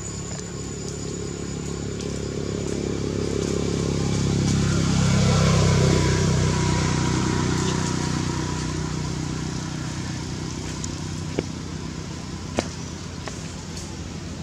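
A motor vehicle's engine passing by: it grows louder to a peak about five or six seconds in, its pitch drops as it goes past, and then it fades. Two sharp clicks come near the end.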